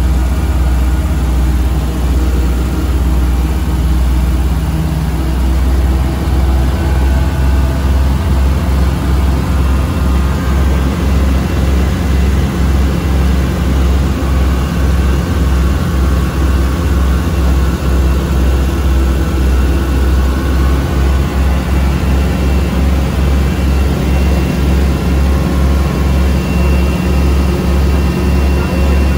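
Homemade twin-engine light aircraft's engines and propellers droning steadily in flight, heard from inside the cockpit. A regular low throb runs underneath and grows more distinct in the second half.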